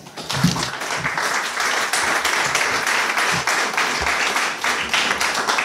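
Audience applauding, many people clapping at once, tailing off near the end.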